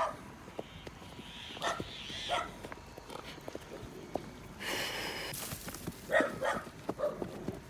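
A dog barking in short yaps, a few near the start and a quicker cluster in the last couple of seconds, over faint footsteps. A brief rushing noise about five seconds in.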